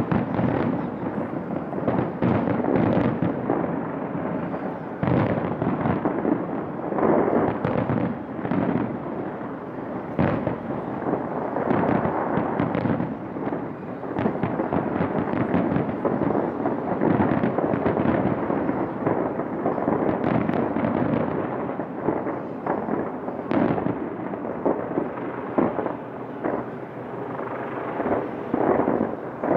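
Fireworks going off in a dense, continuous barrage: many overlapping bangs and crackles with no break.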